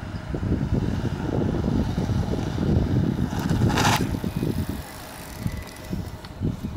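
A 7000-watt electric mountain bike riding past on asphalt: a low rumble of tyres and wind on the microphone, with a short rushing hiss as it passes close about four seconds in.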